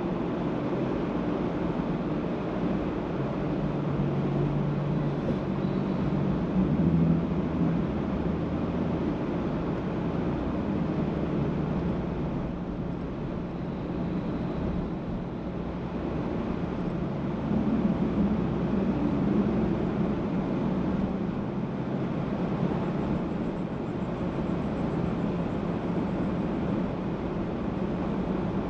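Car driving on a road: a steady mix of engine hum and road noise, swelling louder briefly twice, about five seconds in and again near eighteen seconds.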